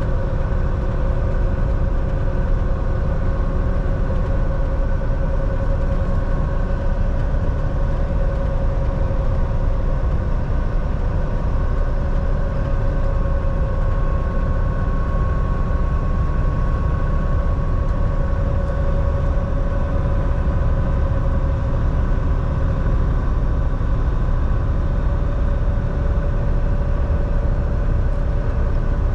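Semi truck driving along at steady speed: constant engine and road noise with a steady hum over it.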